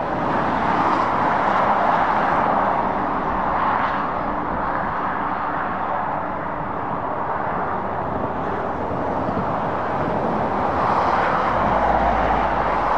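Steady dual-carriageway traffic noise: tyres and engines of passing cars, with a DAF rigid lorry approaching. It grows louder near the end, where a low engine rumble comes in.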